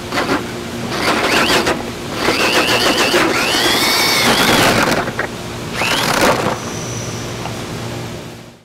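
Power drill spinning an adjustable hole saw through drywall in a few short runs, the motor's whine rising and falling in pitch as it speeds up and slows, over the scraping of the cut.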